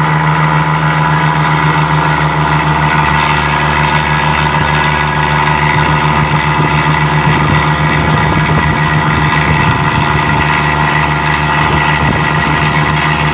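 Roll-on/roll-off ferry's diesel engines droning with a constant, steady hum under way, mixed with the rushing noise of the churning wake.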